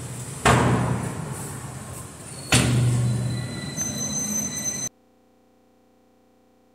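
A door being pushed and forced: two loud bangs about two seconds apart, each rattling and ringing on as it fades, then a brief high creak before the sound cuts off to near silence.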